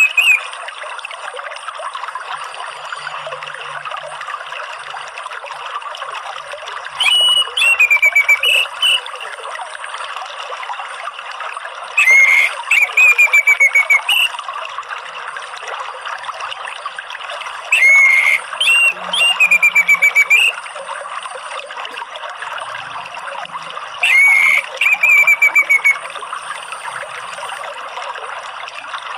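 Orange-headed thrush singing the same short loud phrase four times, about every six seconds: a rising note followed by a rapid run of falling notes. Behind it runs a steady trickle of flowing water.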